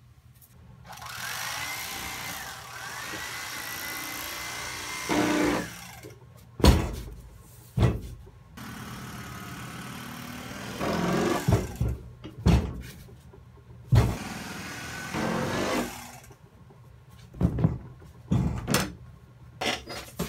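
A foam cushion insert being forced into its fabric cover: long stretches of foam rubbing and scraping against the cloth, with a faint squeak of friction, broken by several thumps as the cushion is shoved and dropped on a wooden table.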